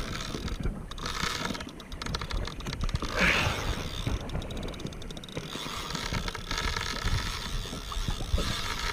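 Fishing reel clicking in short runs of rapid clicks while a big hooked fish is being played on the line.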